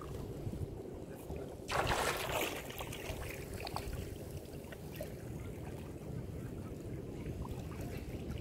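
Wind buffeting the microphone over shallow sea water, a low unsteady rumble, with a brief louder rush of noise about two seconds in and a faint steady hum underneath.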